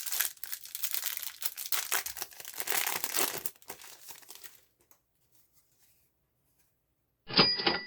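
Foil wrapper of a Yu-Gi-Oh promo card pack being torn open and crinkled, a dense crackling for about four seconds that then dies away. Near the end comes a short, sharp sound with a high ringing tone.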